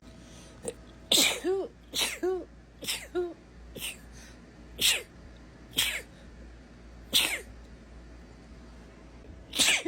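A woman sneezing over and over in a sneezing fit, about eight sharp sneezes roughly a second apart, several ending in a short voiced 'choo'.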